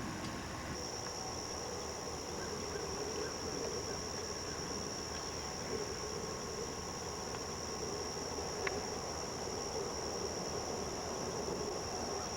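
A chorus of insects gives a steady, high-pitched trill that sets in just under a second in and holds without a break, over a faint low background rumble.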